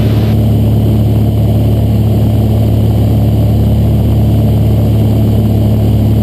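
Cessna 182's piston engine and propeller droning steadily in flight, a constant low hum. A faint hiss cuts off a fraction of a second in.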